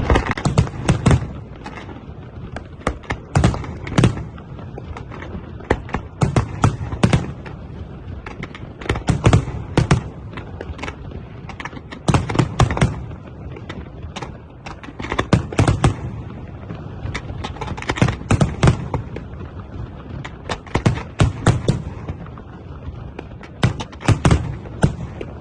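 Fireworks display: shells bursting in rapid clusters of sharp bangs every second or two, with a low rumble carrying on between the bursts.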